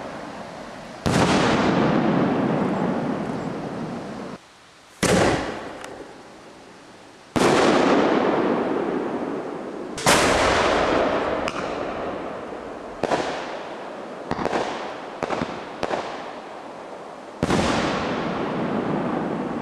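Homemade aerial firework shells bursting overhead: about six loud bangs a few seconds apart, each trailing off in a long rolling echo, with a quick run of smaller cracks in the middle.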